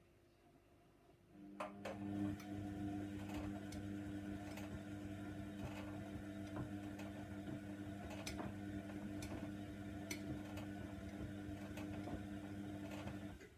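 Hoover Nextra washer dryer running: a steady hum with scattered light clicks and knocks starts about a second in and runs for about twelve seconds, then cuts off suddenly near the end.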